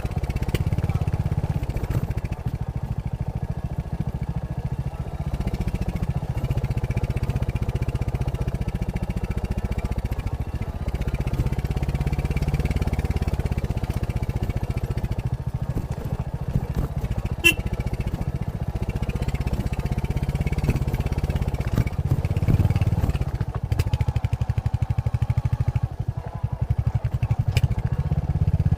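Royal Enfield Hunter 350's single-cylinder engine running through its stock exhaust while the motorcycle is ridden at a steady pace. The engine note swells a little now and then, and a brief sharp click comes about two-thirds of the way through.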